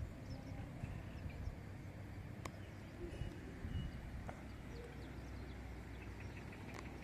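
Outdoor ambience: faint, short bird chirps over a steady low rumble, with a single sharp click about two and a half seconds in.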